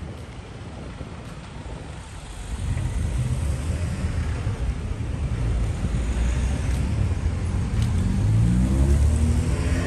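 Road traffic: car engines rumbling low as vehicles move off, growing louder about two and a half seconds in, with one engine rising in pitch as it accelerates near the end.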